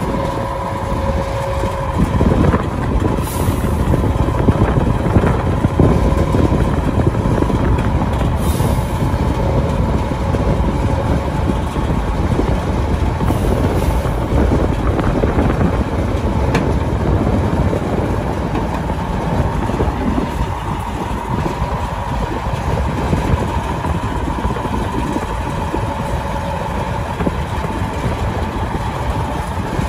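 KhTZ T-150K tractor's diesel engine running steadily at low revs as the tractor creeps down the ramps off a lowboy trailer, with a steady whine running above the engine note.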